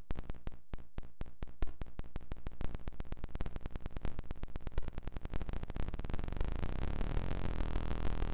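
Synthesized electronic clicks from a Max/MSP patch driven by an IanniX score, repeating faster and faster from about four a second until they merge into a low buzzing drone about six seconds in.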